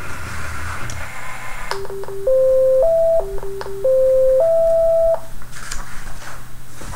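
Parallax Scribbler 2 robot's drive motors whirring briefly as it moves. Then its speaker plays a short electronic tune of plain beeps: a few quick low notes followed by two longer, higher notes, with the phrase played twice.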